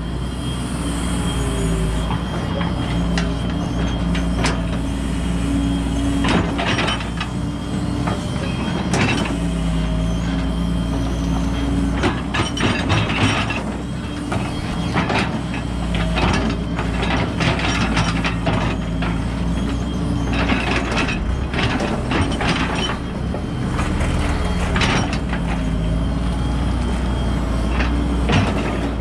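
Hydraulic excavator's diesel engine running, its pitch rising and falling with the load as the bucket digs and scrapes through wet mud and stones, with repeated clanks and scraping.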